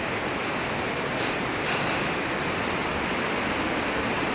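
Steady rushing of a waterfall and its river, an even hiss of falling water with no let-up.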